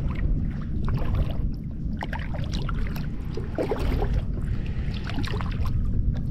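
Kayak paddle strokes: the blade dipping and pulling through the water with splashes and drips, over a steady low rumble.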